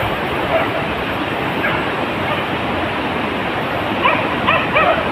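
Beagle yelping: a few scattered short yelps, then a quicker run of them from about four seconds in, over a steady rushing noise.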